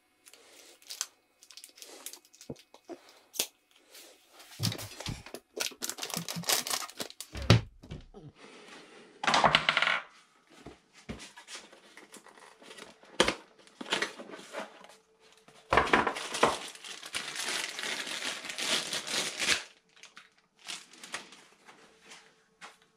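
A new road-bike brake/shift lever being unpacked from its cardboard box and plastic packaging: scattered clicks and knocks from handling the parts, with longer bursts of tearing and crinkling about nine seconds in and again from about sixteen to nineteen seconds.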